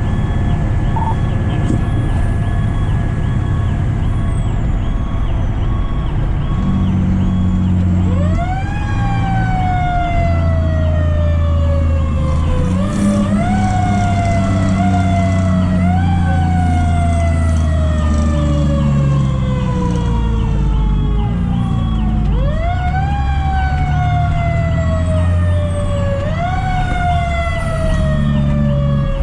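Fire truck sirens sounding over the truck's low engine rumble. A fast, repeating electronic siren pattern runs throughout, and from about eight seconds in a second siren winds up quickly and slowly winds down, pulsed four times.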